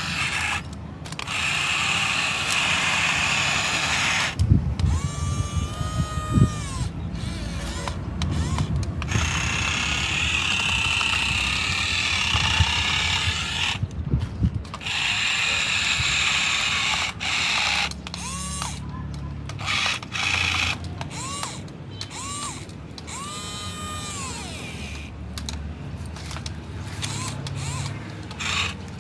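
Toy remote-control car's small electric motor and plastic gearbox whirring in repeated bursts, starting and stopping many times. Several times the whine rises, holds and falls in pitch as the throttle is worked.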